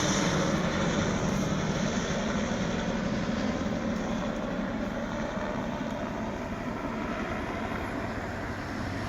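Crop-dusting helicopter flying past, its engine and rotor noise steady and slowly fading as it moves away.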